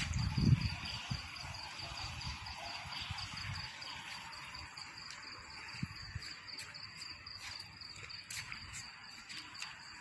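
Crickets chirping in a steady, fast trill that grows weaker after about four seconds. Low bumps near the start and a scattered few short clicks later on.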